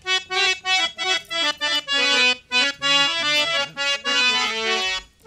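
Harmonium playing a quick melody of short, separate notes.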